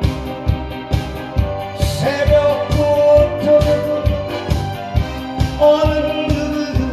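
Korean trot song with a steady drum beat about twice a second, and a man singing live into a handheld microphone over the backing track, holding long notes from about two seconds in and again near the end.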